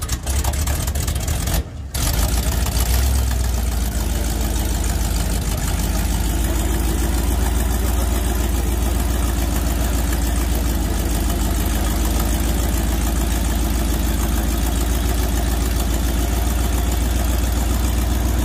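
Old International Harvester grain truck engine idling steadily just after being started.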